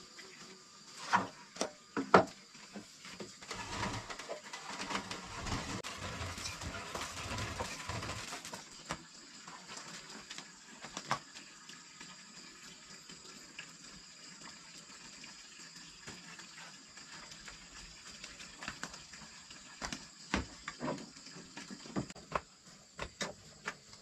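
Handling sounds: two sharp knocks a second apart, then several seconds of noisy rustling, then scattered light taps, over a faint steady high-pitched whine.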